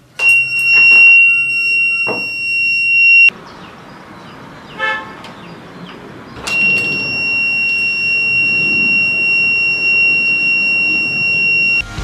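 Small 3 V buzzer of a homemade battery door alarm sounding a steady high-pitched tone for about three seconds and cutting off suddenly, then sounding again for about five seconds after a short pause.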